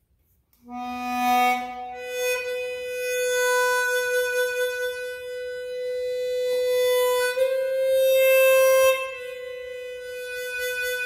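A 16-hole Seydel Symphony chromatic harmonica with a slide mouthpiece is played as a slow melody. It comes in about a second in with a short low note, then long held notes that carry a slight vibrato.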